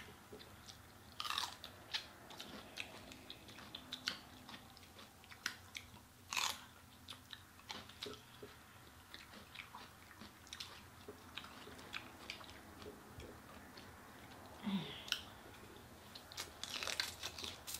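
Eating sounds: two people chewing and biting into sauced chicken wings and celery sticks. Many small wet mouth clicks, with a few louder crunches scattered through.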